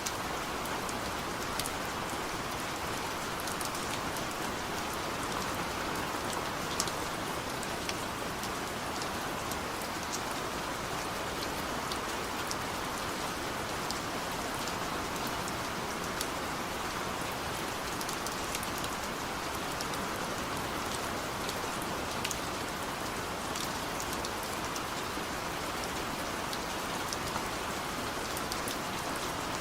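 Heavy rain falling steadily, a dense even hiss with many sharp, close drop hits, no thunder.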